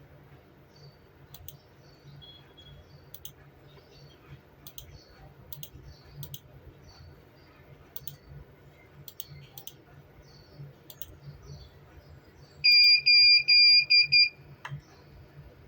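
Sharp clicks every second or so, like a computer mouse clicking through a CCTV recorder's menu. Near the end comes a loud quick run of about six short high-pitched electronic beeps from the recorder's buzzer.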